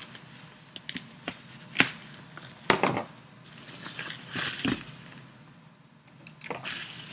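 Cardboard shipping box being cut open with a knife: a few sharp clicks and knocks, two louder cracks about two and three seconds in, then rustling and tearing of the packaging.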